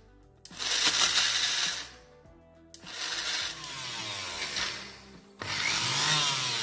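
Electric mixer grinder (mixie) grinding sesame seeds and grated coconut in its steel jar. It runs in three short pulses with brief pauses between them, and the middle pulse is the longest.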